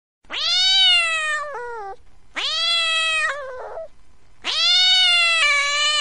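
Domestic cat meowing: three long, drawn-out meows about two seconds apart, each swooping up sharply at the start, holding, and dropping in pitch at the end.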